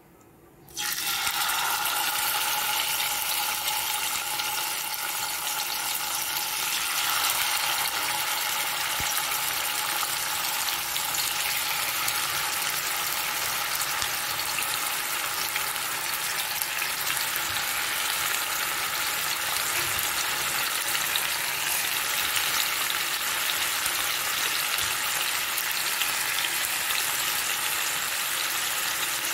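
Marinated chicken legs shallow-frying in hot oil in a pan: a loud, steady sizzle that starts suddenly about a second in.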